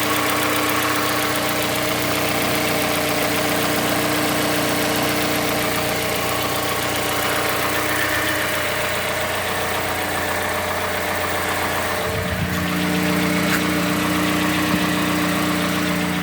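Mazda CX-5 Skyactiv-G 2.5 four-cylinder petrol engine idling cold during warm-up, with the knock the owner asks about as a possible fault. About twelve seconds in, the engine's steady hum changes pitch.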